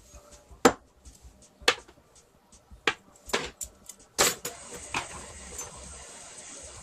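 Several sharp knocks and clinks, roughly one a second, then a steady hiss that starts a little past four seconds in.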